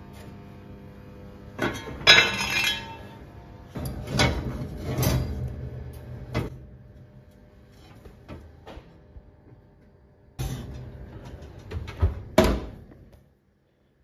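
Enamelled cast-iron Dutch oven being handled in a hot oven: the heavy lid knocks and clinks against the pot and the pot scrapes on the wire oven rack, in a run of clatters and knocks. The oven door bangs shut near the end, over the steady hum of the oven fan, which stops just after.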